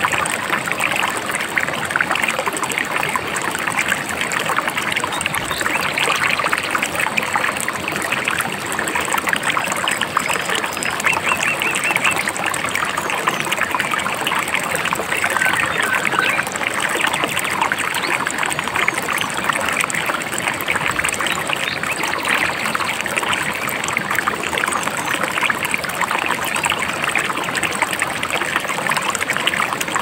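A babbling river: a steady, even rush of running water.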